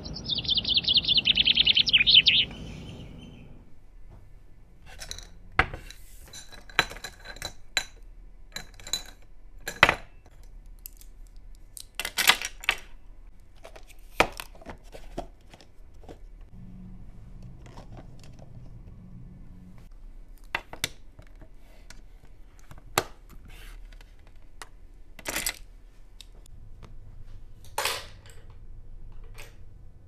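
A bird calls for about two seconds at the start, a fast fluttering run of high notes. After that come scattered light clinks and taps of metal jewellery against a glass jewellery jar, a few of them ringing briefly.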